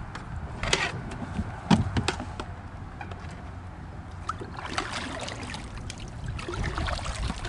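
Water trickling and splashing around a kayak as a freshly caught bass is handled, with two sharp knocks about one and two seconds in.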